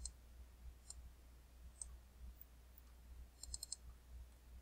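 Faint computer mouse clicks while working a spreadsheet: a few single clicks about a second apart, then a quick run of about four clicks near the end, over a faint low hum.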